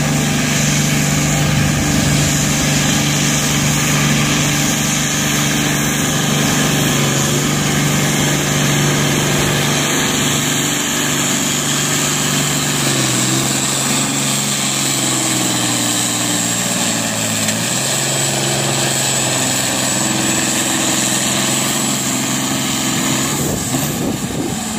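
International Harvester 1066 tractor's diesel engine running hard under full load while pulling a weight-transfer sled. Its note is steady at first, then sinks and wavers from about halfway through as the sled's growing weight lugs the engine down, easing off near the end.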